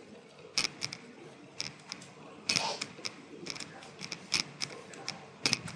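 Irregular taps of a computer keyboard being typed on, about a dozen keystrokes with a quick run near the middle.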